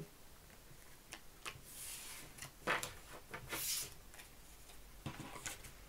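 Tarot cards being gathered up from a table: a few light taps and two short swishes of cards sliding together, the sharpest tap about two and a half seconds in.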